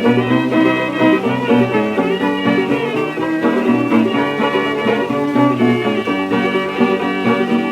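Old-time string-band music from a 1928 78 rpm record: fiddle carrying the tune over guitar accompaniment in an instrumental passage, with the high end of the sound cut off above about 4 kHz.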